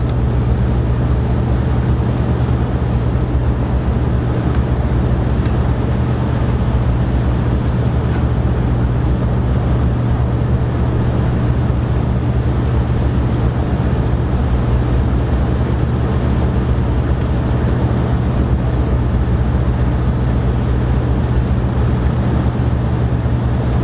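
Steady low mechanical drone with a constant hum that does not change.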